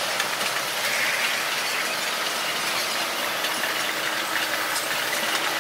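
Central–Mid-Levels escalator running: a steady mechanical whir and hiss from the moving steps and handrail, with a faint steady hum joining about three seconds in.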